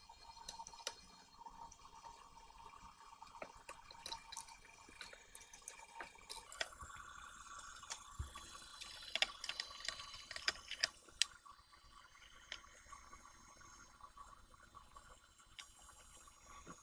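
Soldering flux sizzling and crackling with many small pops under a hot soldering iron while a small surface-mount diode is desoldered and replaced on a circuit board, the crackles densest in the middle.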